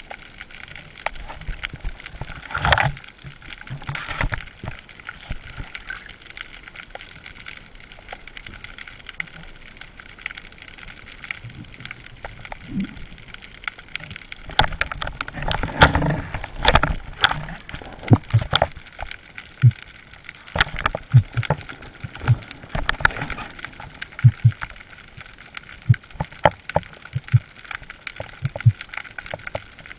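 Underwater sound picked up through a camera housing during a breath-hold dive: a low rush of water with scattered sharp clicks and knocks, which come much thicker from about halfway through.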